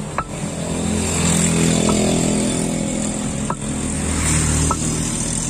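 A motorcycle engine running close by, swelling from about a second in and easing off near the end, the loudest sound. Over it, a few light knocks of a stone pestle against a stone mortar as fruit is mixed.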